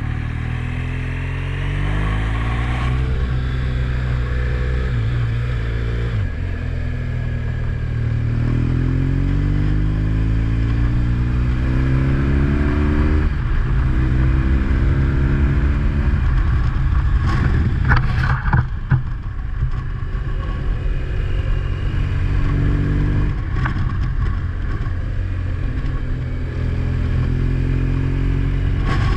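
A motor vehicle's engine accelerating through the gears, its pitch climbing and then dropping back at each shift, with a short burst of rattling knocks about two-thirds of the way through.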